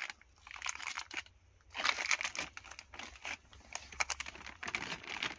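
Spare-part packaging being handled: plastic bags and cardboard boxes crinkling and rustling in irregular bursts.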